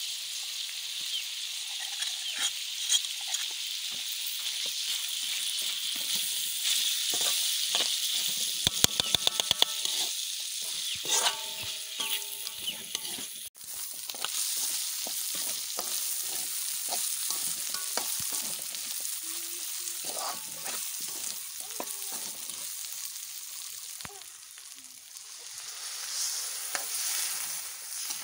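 Meat sizzling as it is stir-fried in a wok, with a metal ladle scraping and clinking against the pan. A quick run of sharp clicks comes about nine seconds in, and the sizzle swells near the end.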